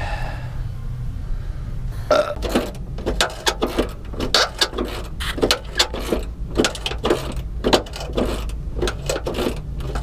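Camera handling noise: from about two seconds in, a dense run of irregular knocks, clicks and rubbing as the camera is held against skin and moved around.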